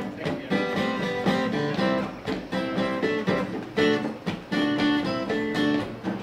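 Acoustic guitar strumming chords in an instrumental song intro, with a steady rhythm.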